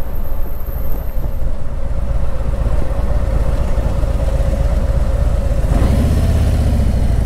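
Motorcycle engine running at low speed with a pulsing low rumble; a stronger, deeper engine note comes in about six seconds in.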